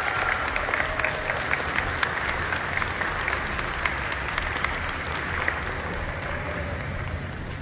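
Audience applauding, the clapping gradually thinning out and fading.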